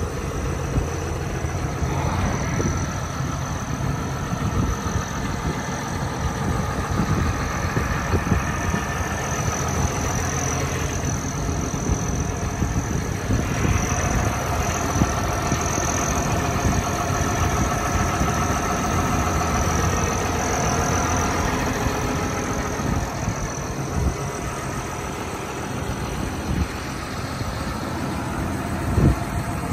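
John Deere 7430 tractor's six-cylinder diesel engine idling steadily, with a higher whine that wavers in pitch over it. A couple of knocks come near the end.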